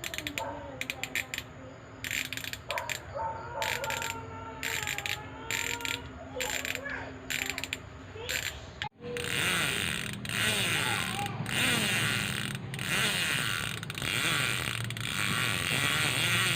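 Six-pawl freehub of a Speedone Soldier bicycle rear hub freewheeling: the pawls click in short bursts at first, then, from about nine seconds in, in a dense, steady ratchet buzz as the wheel spins faster.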